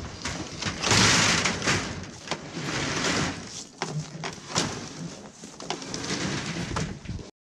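Yamaha Enticer snowmobile dragged down a steel mesh trailer ramp by hand: its skis and body scraping and clattering on the metal mesh, with repeated knocks. The sound cuts off suddenly near the end.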